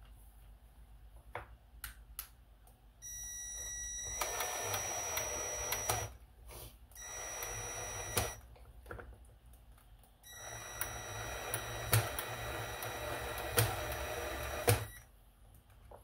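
Low-torque cordless drill/driver driving a screw into the robot vacuum's plastic wheel housing, its motor whining steadily in three runs of a few seconds each, with a few sharp clicks during the last run.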